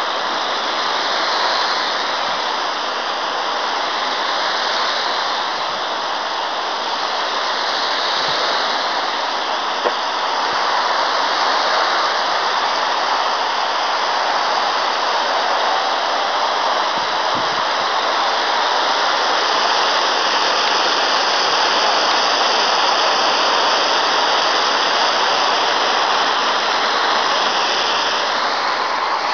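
A jet of water spraying steadily against a stone wall and splashing off it, a constant loud hiss. The wall has a water-repellent treatment, so the water runs off the stone instead of soaking in.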